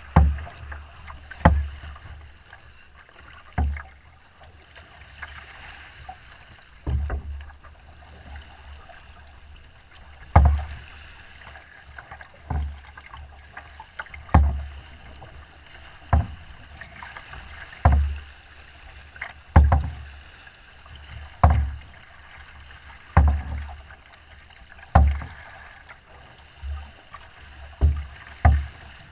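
A small boat's hull slapping into choppy, wind-driven waves, a heavy thump roughly every two seconds, over a steady rush of wind and water.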